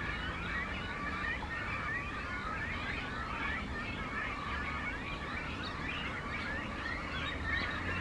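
Great cormorant breeding colony calling: many short, high, squiggly calls overlapping in a continuous chorus, over a steady low rumble.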